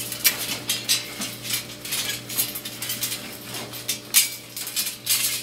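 Blomus stainless steel pinwheels flicked by hand and spinning on their metal shafts, giving a run of light, irregular metallic clicks and clinks.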